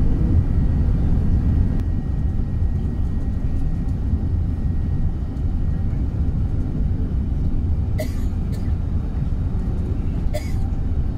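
Airbus A380 cabin noise on approach with flaps extended: a steady low rumble of airflow and its four Rolls-Royce Trent 900 engines. Two short sharp sounds come about eight and ten and a half seconds in.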